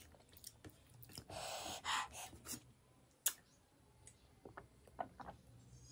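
Quiet eating sounds from a person eating fish curry close to the microphone: soft mouth and chewing noises with small clicks. A breathy rush comes about a second and a half in, and a single sharp click a little after three seconds.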